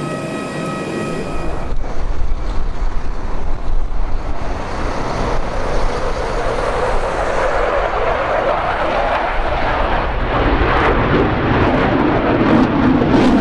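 Jet roar of an F-15J Eagle's twin F100 turbofan engines in a display flight, building steadily louder as the fighter comes closer. The first second and a half holds a steady whine, which cuts off abruptly.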